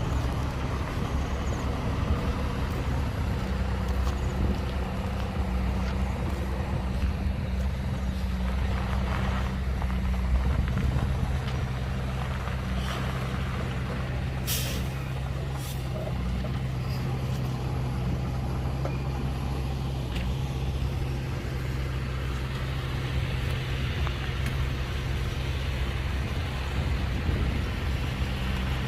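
Heavy diesel engine of a dump truck running steadily. About halfway through come two short hisses of air, the first louder, typical of a truck's air brakes.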